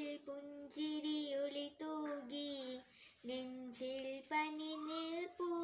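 A girl singing a Malayalam song solo and unaccompanied, holding long steady notes, with a brief pause for breath about three seconds in.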